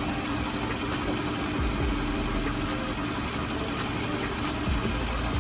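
A car engine idling steadily, the running car supplying a jump-start boost to a dead battery.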